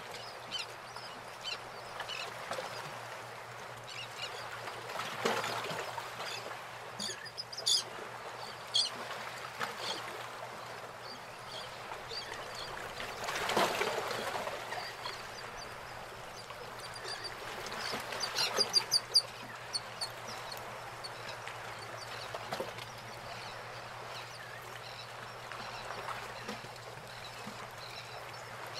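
Birds calling over a steady rushing background, with quick rapid series of calls about a quarter of the way in and again past halfway.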